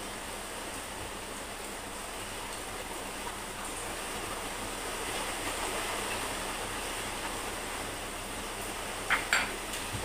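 Two sharp clinks of cutlery against a ceramic bowl about nine seconds in, over a steady background hiss.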